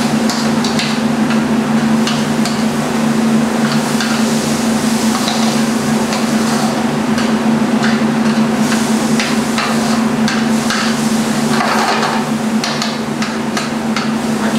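Metal spoon knocking and scraping against a metal sauté pan while diced sausage and vegetables are stirred, in irregular clinks, over a steady low hum.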